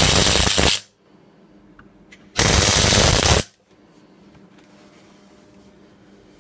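MIG welder arc crackling in two short bursts, about a second each, as the welder lays welds on a stainless steel exhaust manifold pipe.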